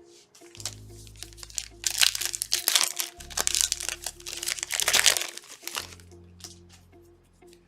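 Foil trading-card pack wrapper crinkling and crackling loudly for about three seconds as it is handled and torn open, over background music with a steady bass line.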